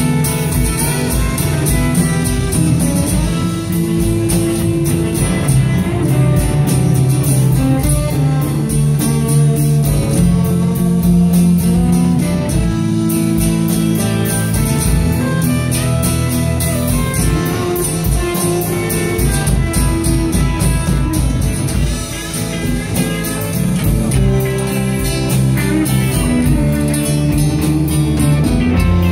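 Live band playing amplified electric guitars and drum kit, with a steady beat.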